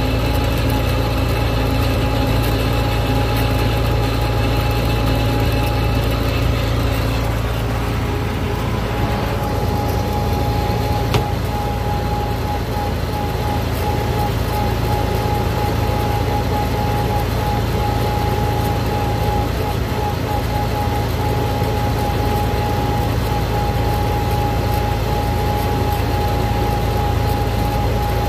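Farm tractor engine running steadily at road speed, with road and wind noise; a steady high whine joins in about ten seconds in.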